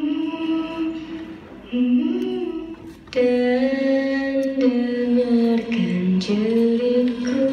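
A song with a singer holding long, slowly gliding notes, played over a hall's sound system; it grows fuller and brighter about three seconds in.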